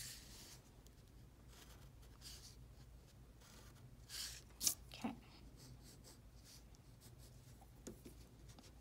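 Faint pencil scratching on paper as lines are drawn along a ruler, with a few louder strokes about four to five seconds in and a light knock around five seconds.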